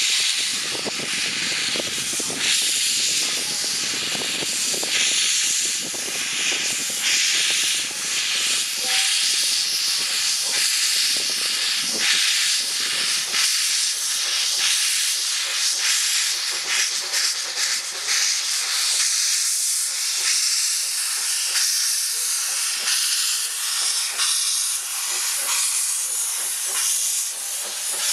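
Narrow-gauge steam locomotive hauling its train, with steam blasting from its open cylinder drain cocks: a loud, steady hiss of escaping steam over the knocks and low rumble of the moving train. The rumble falls away about two thirds through while the hiss carries on.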